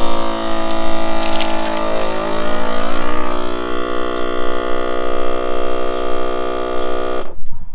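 Vacuum sealer's pump motor running as it draws the air out of a bag, a steady hum whose pitch shifts about halfway through, then cuts off suddenly near the end as the seal is made.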